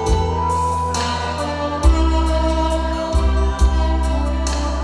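Tenor saxophone playing a slow trot melody in held notes over a backing track with a bass line and a steady drum beat.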